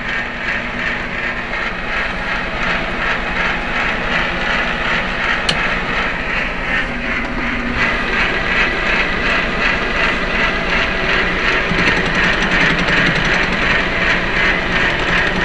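Metal lathe running, the chuck and workpiece spinning, with a steady mechanical whir from the motor and gears that grows louder about halfway through. A single sharp click about five and a half seconds in.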